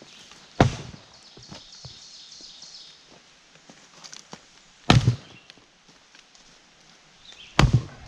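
Splitting maul striking firewood rounds, three sharp cracks of the blade going into the wood, about four and then three seconds apart, with lighter knocks of wood between.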